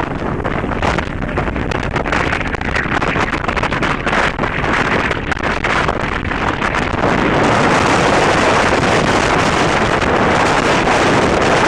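Wind buffeting the microphone over the steady rush of a fishing boat running on the river, getting louder about seven seconds in.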